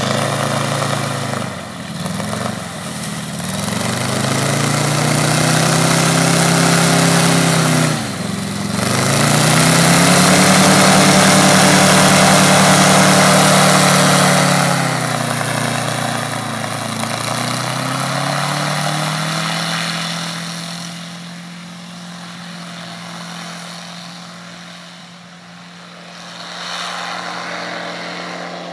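An engine revving up and falling back several times in long swells, then running at a steady, lower speed for the last several seconds.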